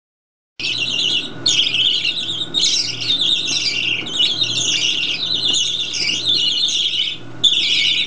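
Several baby budgerigars giving hungry begging cries, a nearly unbroken chatter of calls that starts about half a second in, with only brief pauses. They are begging for hand-feeding formula.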